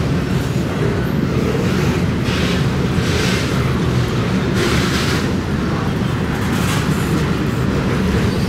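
A train passing close by: a steady low rumble of the rail cars, with several brief rushes of higher wheel-and-rail noise.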